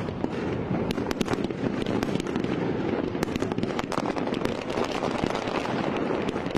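Fireworks display: many sharp pops and bangs in quick, irregular succession over a steady low background noise.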